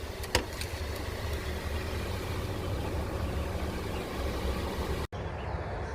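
Steady low rumble, engine-like, with a single faint click about a third of a second in; the sound cuts out for an instant about five seconds in.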